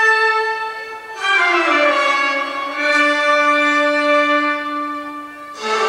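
Orchestral music with held string chords, the harmony changing about a second in, again near three seconds, and once more near the end.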